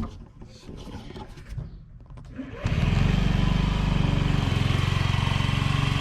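Honda Metropolitan scooter's 49cc four-stroke single-cylinder engine starting about two and a half seconds in, then idling steadily. It purrs smoothly without the loud clicking of the old fuel pump, a sign that the replacement fuel pump is working.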